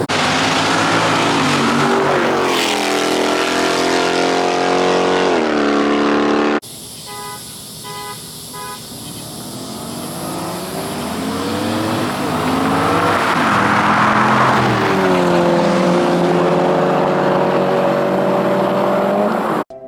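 Car engine revving hard at high rpm, its pitch climbing and dropping as the car does donuts, with a hiss of spinning tyres. About six and a half seconds in the sound cuts abruptly to a quieter stretch with a few quick beeps, then the engine climbs back to high revs and holds there.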